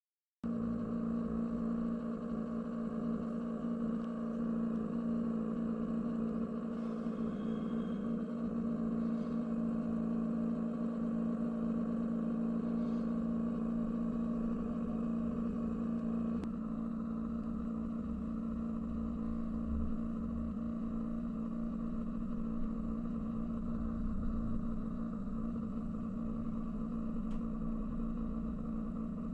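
Steady electric hum with a strong low tone and a stack of overtones from the small pump of a PETKIT 3rd-generation cat water fountain. It is the abnormal noise the unit has started making.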